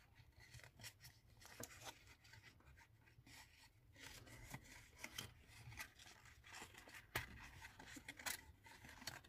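Faint rustling and light clicks of paper card being folded and pressed into a small box by hand, with one sharper tick about seven seconds in.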